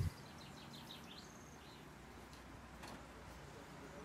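A brief thump right at the start, then a small bird chirping a quick run of short high notes for about a second and a half, faint over a steady low background noise.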